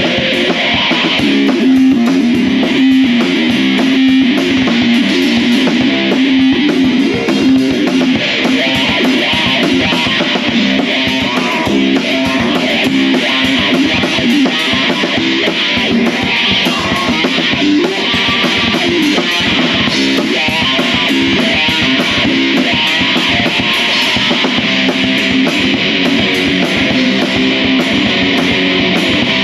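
Electric guitar played through a small amplifier and a drum kit, playing rock together live without a break.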